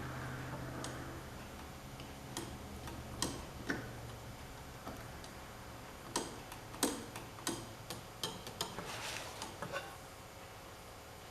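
Irregular light metallic clicks and clinks, a dozen or so, clustering in the second half: metal parts being worked by hand while fitting a garden tractor's gear shifter and seeking neutral on its transmission. A faint low hum sits under the first few seconds.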